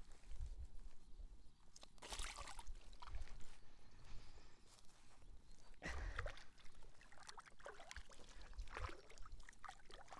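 Splashing and sloshing water as a crucian carp is dropped into a keepnet and the net is moved in the shallows, in a few short irregular bursts about two, six and nine seconds in, over a low rumble.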